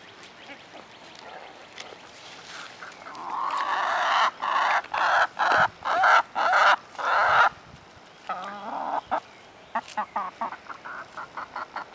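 Backyard hens clucking, with a loud run of about seven short calls, roughly two a second, in the middle, then a quick string of short clucks near the end.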